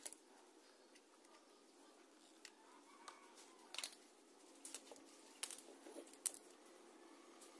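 Faint clicks and taps of small electronic parts being handled on a tabletop: a bridge rectifier and its wire leads being picked up and positioned against a transformer. About ten sharp clicks, scattered and thickest in the second half, over a quiet room hiss.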